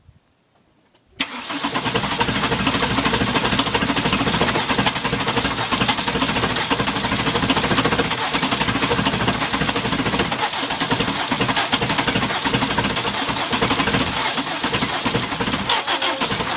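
Worn 1.6-litre turbo diesel being started in the cold. About a second in, the starter cuts in suddenly and the engine turns over continuously, firing unevenly and not settling into a steady run. The engine is worn (500,000 km) and lacks the compression to start cold, though its glow plugs and timing are good.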